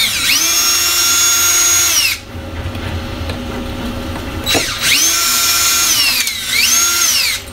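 DeWalt cordless drill/driver backing Phillips screws out of a window-shade mounting bracket: a steady motor whine for about two seconds, then after a pause a second run whose pitch drops, rises again and stops.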